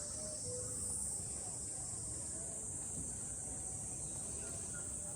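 Steady, high-pitched chorus of insects singing, with a low background rumble beneath it.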